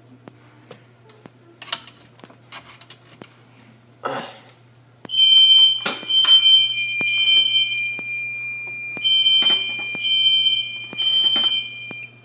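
Fire alarm sounding again after a smoke detector is set off, beeping in the temporal-three evacuation pattern: three beeps, a pause, then three more, over a steady high tone. Before it comes in, a few light clicks and a rustle of handling.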